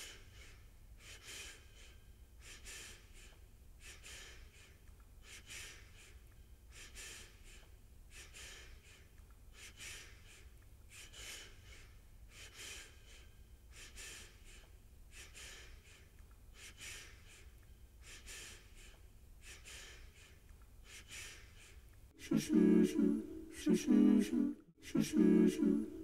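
Faint, breathy puffs repeating evenly about every second and a half over a low hum, the intro of an a cappella song; about 22 seconds in, voices come in loudly, singing in short pulsing chords.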